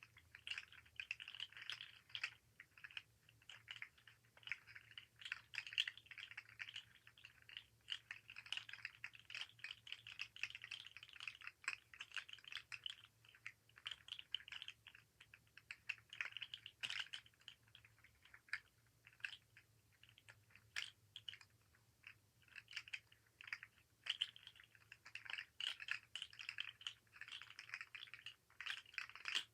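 Fidget slug toy being handled, its jointed segments making rapid, faint clicks and rattles in continuous clusters.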